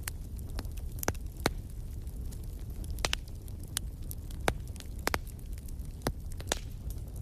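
Wood fire in a fireplace crackling, with sharp pops at irregular moments over a low, steady rumble.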